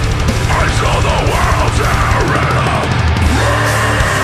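A deathcore band playing live: heavy distorted guitars and pounding drums under a harsh screamed vocal.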